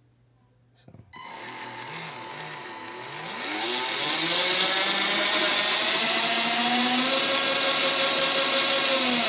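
Johnson 540-size brushed motor driving an old electric drill's metal gearbox and chuck. It starts slowly about a second in, speeds up around three seconds in, and then runs steadily at high speed, whining.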